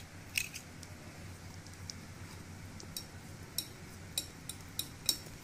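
Wire whisk beating curd and gram flour in a glass bowl, its wires clicking against the glass in light, irregular ticks, more of them in the last couple of seconds, over a low steady hum.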